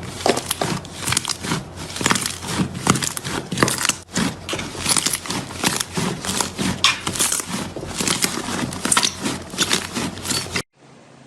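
Slime being squished and stretched by hand, making a dense, irregular run of crackly clicks and pops that stops abruptly near the end.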